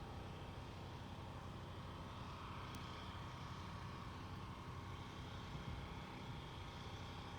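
Steady low rumble of outdoor parking-lot background, like distant traffic or idling vehicles, with a faint steady hum over it. A single faint click comes about three seconds in.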